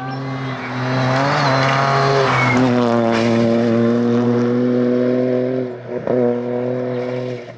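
Toyota GR Yaris rally car's engine held at high revs as it comes through a corner and pulls away, the pitch climbing over the first two seconds and then staying steady. Revs drop briefly about six seconds in and pick up again before the sound stops abruptly near the end.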